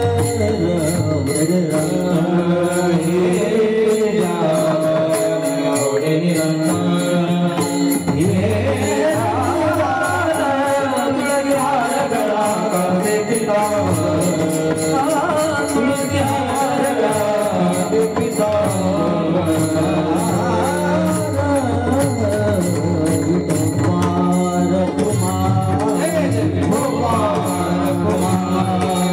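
A male kirtankar singing a Marathi devotional panchapadi melody, with percussion keeping a steady, fast beat underneath.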